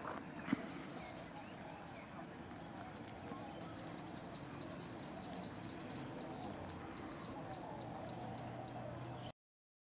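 Faint outdoor ambience by a lake: distant voices and animal calls over a steady background, with a sharp click about half a second in. The sound cuts off abruptly near the end.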